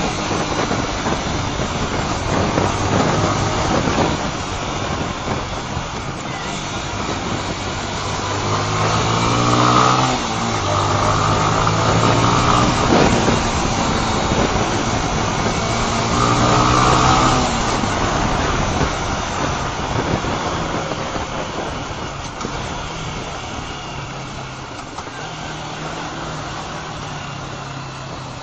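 Honda CBR125 motorcycle's single-cylinder four-stroke engine under way, its pitch climbing as it accelerates and dropping back at gear changes, twice in the middle, then easing off toward the end. Wind rushes over the microphone.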